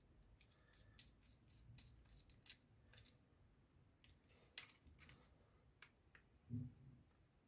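Faint ticks and clicks of a small screwdriver turning screws into the plastic earpiece housing of a Jabra PRO 9400 headset, with a low thump about two thirds of the way through from the headset being handled.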